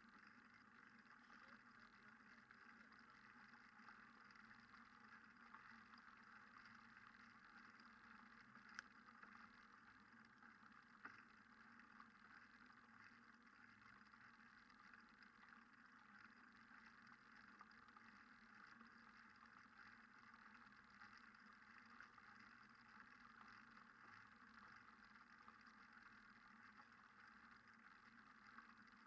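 Near silence: faint, steady noise, with two faint clicks about nine and eleven seconds in.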